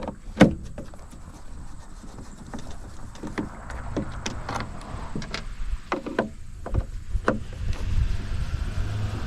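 Scattered clicks and knocks of an espresso machine being handled and taken apart, with one sharp knock about half a second in, over a low rumble.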